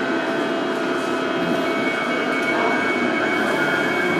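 A London Underground 1995 Stock train standing at a platform with its doors open, its onboard equipment giving a steady hum with several steady whining tones over the station's background noise.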